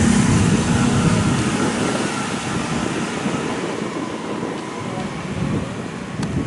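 A vehicle engine running nearby: a low hum that fades out in the first second or so, followed by a steady low rumble.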